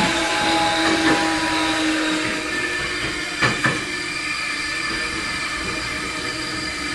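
Tokyo Metro 05 series electric train running, with the tones of its Mitsubishi hybrid SiC-VVVF inverter and traction motors over steady running noise. A low tone fades out about two and a half seconds in. The wheels click over rail joints about a second in and twice in quick succession about three and a half seconds in.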